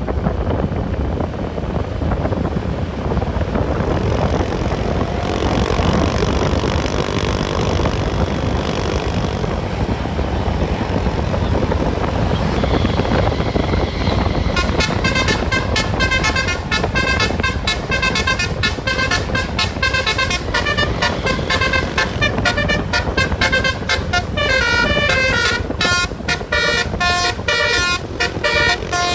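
Road and wind noise, then, from about halfway through, a bus telolet horn (a multi-tone air horn) plays a quick tune. Its notes change pitch and cut on and off several times a second.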